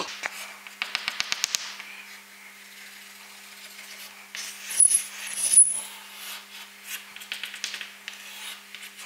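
Chalk scratching on a chalkboard as a diagram is drawn: a quick run of short strokes about a second in, then louder strokes with a brief high squeak around the middle, and more strokes near the end.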